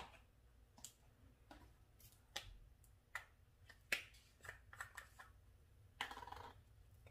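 Scattered small clicks and taps of seasoning containers being picked up and opened on a kitchen counter, with a brief rustle about six seconds in.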